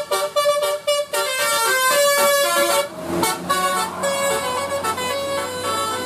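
Indonesian bus "telolet" horn, a multi-tone air horn playing a tune: quick short notes stepping up and down, then longer held notes from about three seconds in.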